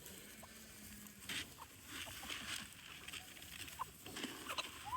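Chickens pecking at scattered feed on the ground, a scattering of small ticks, with soft clucks and peeps.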